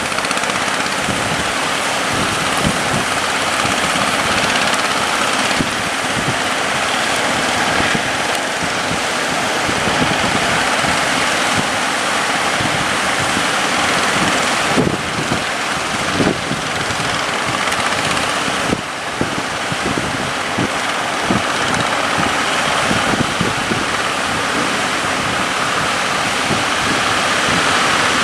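Steady rush of wind on the microphone and breaking waves, with a boat's engine running beneath, the low end buffeted throughout.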